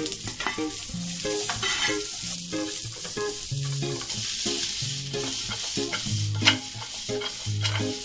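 Carrots sautéing with onion and garlic in hot oil, sizzling steadily, as a spatula stirs them and knocks and scrapes against the pan.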